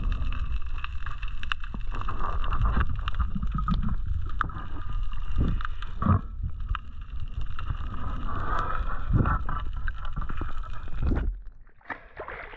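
Underwater water noise heard through a diving camera's housing: a dense, muffled low rumble with scattered clicks and knocks as the freediver swims a speared snapper in. About eleven seconds in the rumble cuts off abruptly as the camera breaks the surface, giving way to lighter splashing water.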